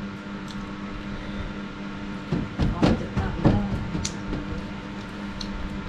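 A few light clicks of spoons on plates over a steady hum, with a short stretch of voice a little before halfway.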